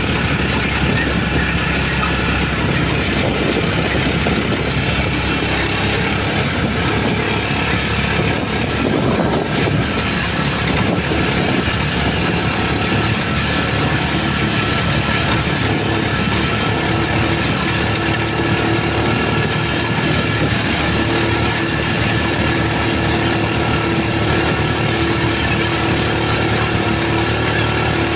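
Motorcycle tricycle's engine running as it rides along a paved road, with steady wind and road noise.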